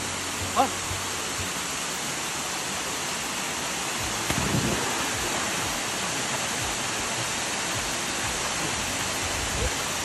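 Steady rush of a waterfall pouring into a rock pool, with a splash of a person jumping into the pool about four seconds in.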